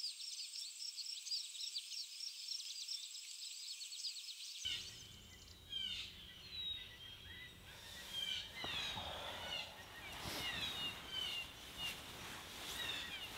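Outdoor ambience with birds: at first a fast, even run of high chirps, several a second, then from about five seconds in scattered bird calls of short falling notes over a light hiss.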